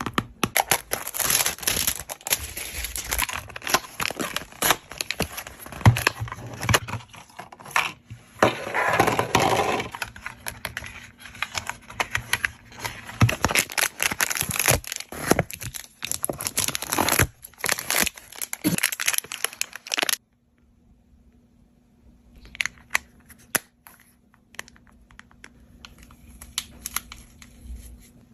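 Slime being squeezed and pressed by hand, making a dense run of crackling and popping. It cuts off suddenly about twenty seconds in, leaving only scattered faint clicks.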